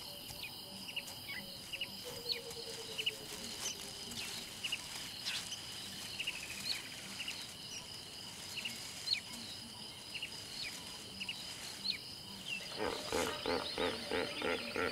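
Bush ambience: a steady high-pitched insect drone with scattered short bird chirps. Near the end a rhythmic series of calls begins, about three a second.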